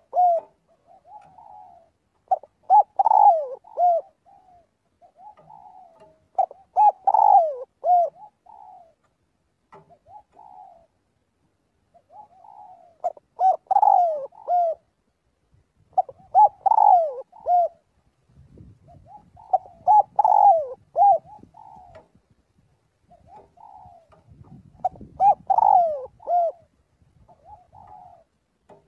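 Spotted dove cooing its call. A loud phrase of several coos comes every three to four seconds, with softer coos in between.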